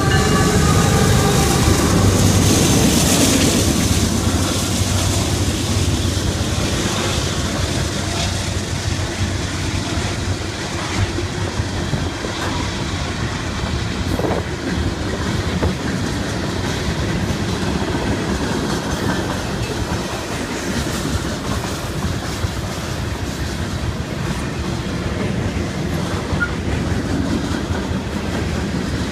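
Norfolk Southern freight train passing close: the diesel locomotives, a GE ES44AC and a Dash 9, go by loudest in the first few seconds. After that comes the steady rolling noise of a long string of freight cars' wheels on the rails.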